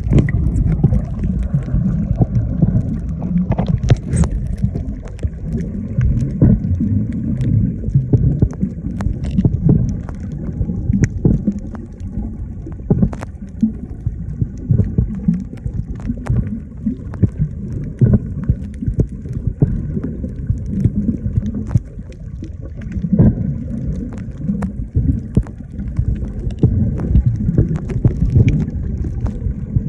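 Water churning and gurgling with an uneven low rumble, broken by scattered sharp clicks.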